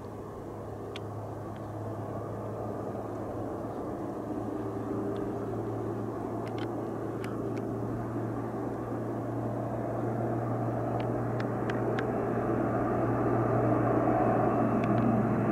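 Engine drone of a large formation of propeller-driven WWII fighters approaching, a steady low hum growing louder throughout, with a few faint clicks.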